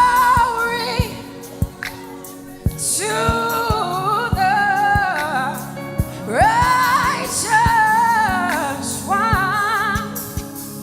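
Live gospel worship song: a singer holds long sung phrases, some with a wavering vibrato, over a band with drums keeping a steady beat.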